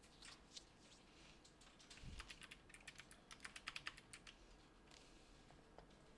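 Faint clicking of computer keyboard keys, scattered at first, then a quick run of keystrokes about two seconds in that lasts about two seconds. A soft low thump comes just as the run starts.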